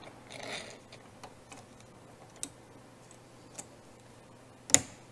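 Metal hardware on a walk-behind floor scrubber's squeegee assembly being handled during blade refitting: a soft rustle, a few light clicks, then one sharp snap near the end as the latch and banding are closed.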